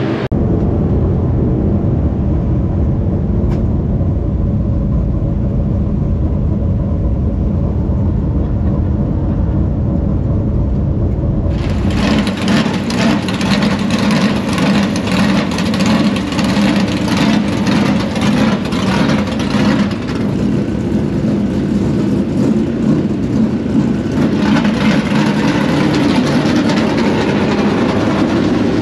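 Dirt late model race car engines running on the dirt track. A low, deep rumble gives way abruptly about twelve seconds in to a louder, fuller, rapidly pulsing engine sound that lasts to the end.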